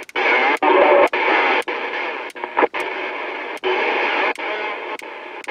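CB radio speaker with the squelch off, stepped from channel to channel every half second or so, with a brief drop-out at each change. Each channel carries hiss and garbled splatter from an overpowered station bleeding onto the adjacent channels.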